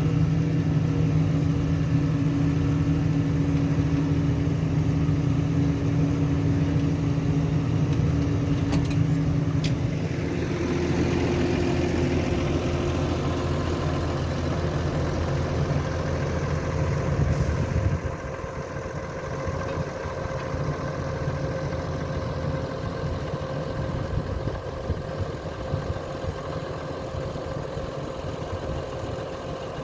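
New Holland T7.210 tractor's six-cylinder diesel engine running steadily. Its note changes about a third of the way in, and a little past halfway it drops and goes quieter.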